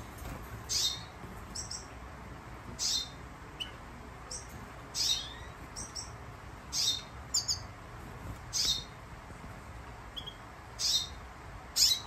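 Siskins calling in a flight cage: short, high chirps, some falling in pitch, spaced irregularly about every second.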